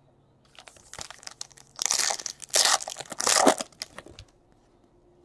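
A Bowman Chrome trading-card pack wrapper being torn open and crumpled by hand. The crinkling comes in a run, loudest in three bursts in the middle.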